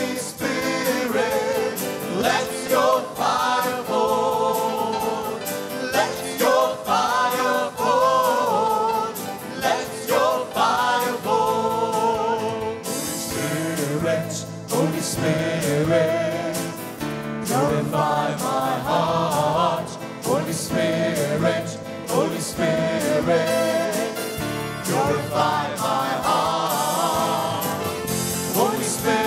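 Christian worship song sung by a male lead singer with backing vocalists, accompanied by acoustic guitar.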